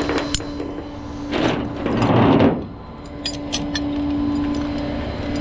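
Tow truck hydraulics running with a steady drone, broken about a second and a half in by a loud rough scraping noise lasting about a second, then a few sharp metallic clicks.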